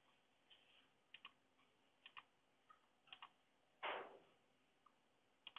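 Faint computer mouse clicks, several in quick pairs, with one louder, brief knock or rustle about four seconds in.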